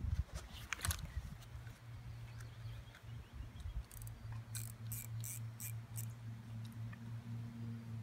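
Fishing rod and reel being handled and fitted together: a few sharp clicks and knocks in the first second, then a quick run of about five clicks around halfway, over a steady low hum.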